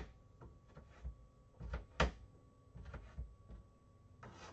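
Knocks and thuds of cookware and utensils being handled on a kitchen counter and stovetop, several separate strikes with the loudest about two seconds in, and a short rush of noise near the end.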